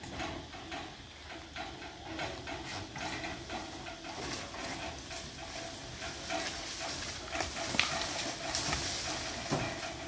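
Pigs in a large pig barn grunting and squealing over a steady hiss, a little louder in the second half.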